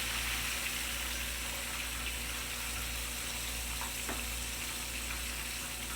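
Breaded tilapia fillets sizzling steadily in hot oil in a frying pan, a continuous crackling hiss.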